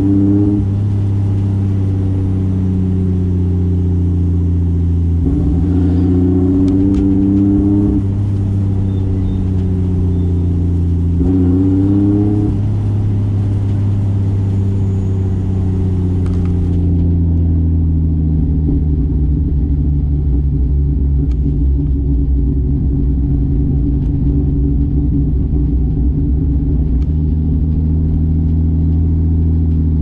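Single-turbo 2JZ straight-six engine of a 1995 Toyota Soarer under way: the engine note rises twice in short pulls, dropping back after each. In the second half it settles into a steady, lower drone.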